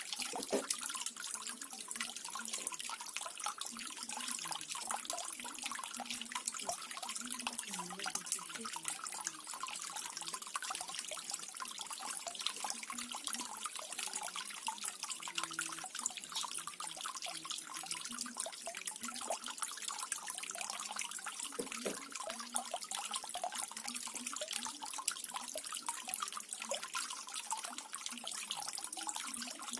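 Small garden waterfall splashing and trickling steadily, with many fine drips and little plinks of falling water.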